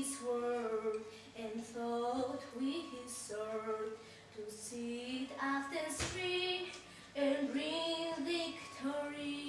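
A girl singing a solo melody in phrases of held notes, no words spoken. A single sharp knock sounds about six seconds in.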